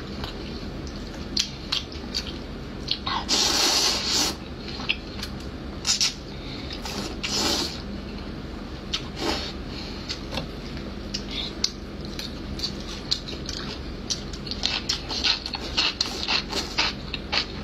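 Close-miked slurping of saucy noodles and wet chewing. The loudest, a long slurp, comes about three and a half seconds in, another around seven seconds; quick, smacking chews crowd together near the end.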